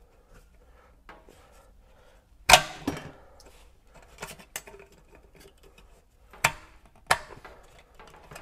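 JM3 oil filter wrench clicking as it slips on a spin-on oil filter tightened one and a half turns, failing to bite. There are about six sharp clicks spaced irregularly, the loudest about two and a half seconds in.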